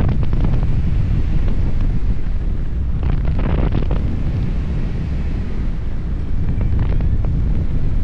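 Wind buffeting a 360 camera's microphone in the airflow of a paraglider in flight: a loud, steady low rumble with a couple of stronger gusts, one about three seconds in and one near the end.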